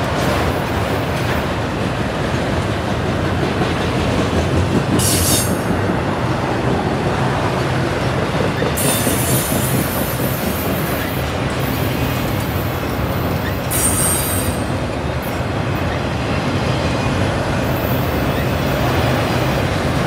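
Autorack freight cars rolling past at steady speed, steel wheels rumbling and clattering over the rail joints. Brief high-pitched wheel squeals come in several times.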